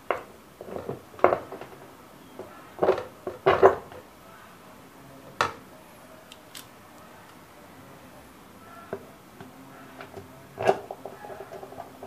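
Sharp knocks and clatter of a screwdriver and loose parts against a washing machine's plastic tub as it is put back together: about five hits in the first six seconds and another near the end.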